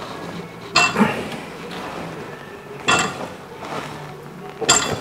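Homemade steel bending brake folding a 1.2 mm steel sheet: sharp metallic clanks with a short ring. There is a close pair about a second in, another near three seconds, and one near the end.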